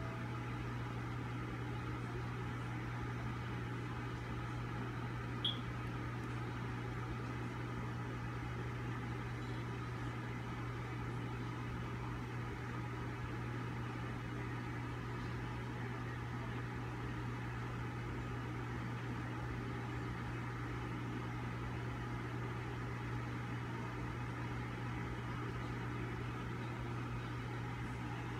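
Steady low mechanical hum of a running motor or appliance, even throughout, with a single short high chirp about five seconds in.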